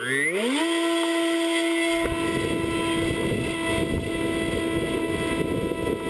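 Electric motor and propeller of an RC flying wing, heard from a camera mounted on the airframe: the whine rises in pitch for about half a second as the motor spools up, then holds steady. About two seconds in, wind starts rushing over the microphone.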